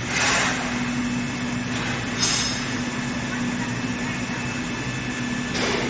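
H-beam assembly, welding and straightening machine running under way, with its oil pump and conveyor on: a steady mechanical hum with a droning tone. Three short bursts of hiss come through near the start, a little past two seconds in, and near the end.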